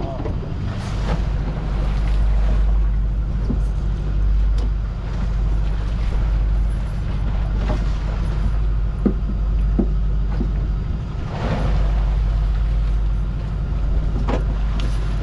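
Steady low hum of a fishing boat's onboard machinery, with a few short clicks and knocks here and there.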